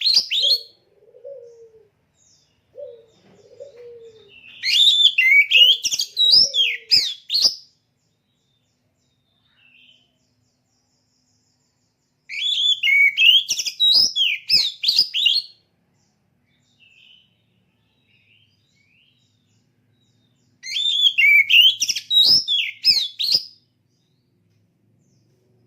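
Oriental magpie-robin (kacer) singing: three bursts of rapid, varied high whistles, each about three seconds long and several seconds apart. Soft low warbling notes come in the first few seconds.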